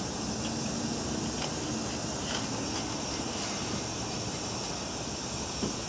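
Bronze-melting furnace burner running with a steady hissing rush.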